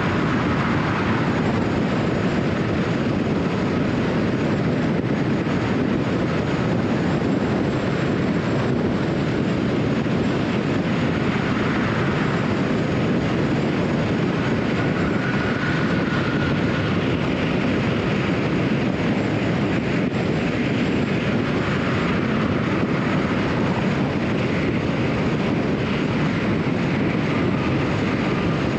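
Steady road noise of a car cruising at highway speed: tyres on concrete pavement and wind, an even low rumble with no breaks and a faint whine above it.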